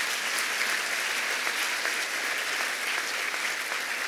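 Audience applauding, a dense, steady clatter of many hands clapping that eases slightly near the end.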